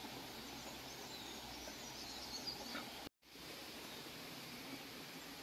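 Faint outdoor ambience with a few faint bird chirps, broken by a brief total dropout of sound a little past halfway.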